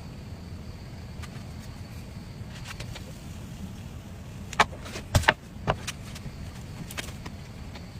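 A handful of sharp clicks and knocks over a steady low rumble; the loudest two come close together just past the middle, with a few fainter ones after.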